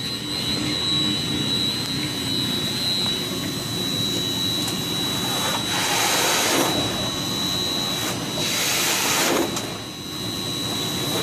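Steady drone of chiller-plant machinery (pumps and chillers running), with a constant high-pitched whine. Two short bursts of rushing hiss come about six and nine seconds in.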